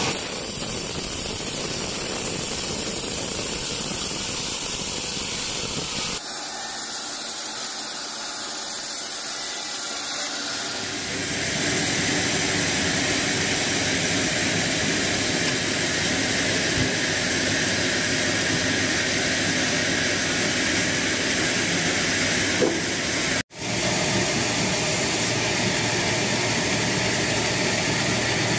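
Band sawmill running and sawing a teak log, a steady hissing whine of blade and motor. The sound changes abruptly a couple of times and cuts out for a moment about two-thirds of the way through.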